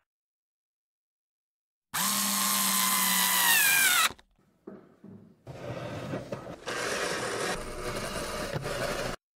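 Cordless drill/driver whirring for about two seconds, its pitch falling as the motor winds down. After a short pause with a couple of small knocks, it runs again for about three and a half seconds, driving a screw into a car's boot trim, and stops abruptly.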